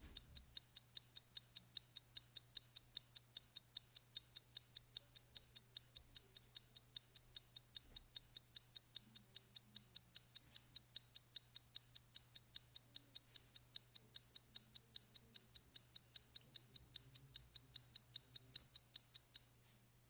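Clock ticking very regularly, about four ticks a second, stopping abruptly near the end, over a faint steady low hum.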